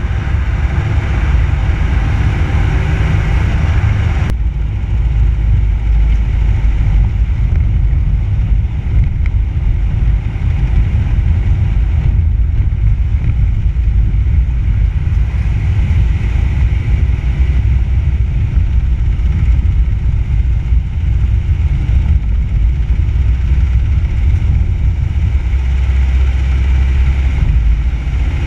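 Steady low rumble of road and wind noise at a bumper-mounted action camera on a moving car: tyres on tarmac and wind buffeting the microphone. About four seconds in the sound changes abruptly, as the brighter hiss of faster road travel drops away to a duller rumble.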